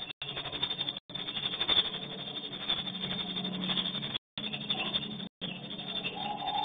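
Dense, fast clicking twitter of swiftlet calls echoing in a concrete swiftlet house, over a low steady hum. The sound cuts out completely for a split second four times.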